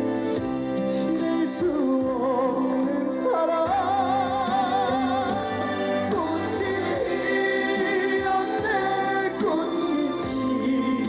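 A trot ballad performed live through a concert PA: band accompaniment under a melody held in long, wavering notes with vibrato.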